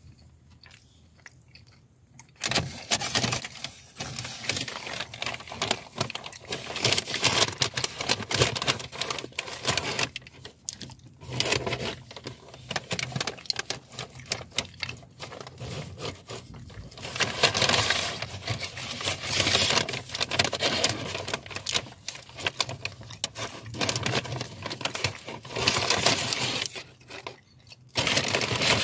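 Food packaging rustling and crinkling as an apple fritter is taken out. The rustling starts about two seconds in and goes on in irregular bursts, with a short pause near the middle and another just before the end.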